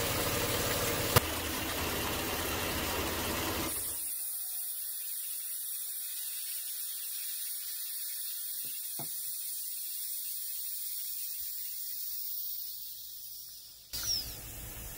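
Electric air compressor running steadily, cut off abruptly about four seconds in, leaving only a faint hiss. About fourteen seconds in comes a sudden burst of air and water spitting from the air filter's drain: a purge of condensed water out of the compressed air.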